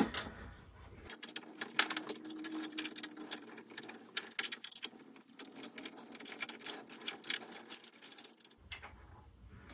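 Rapid, irregular metallic clicking and ticking as Allen keys turn a screw out of a scooter's rear suspension bracket.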